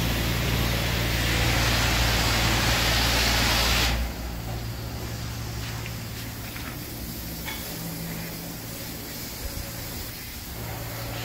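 High-pressure spray from a car-wash wand hissing loudly, cutting off suddenly about four seconds in, leaving a fainter hiss over a low steady hum.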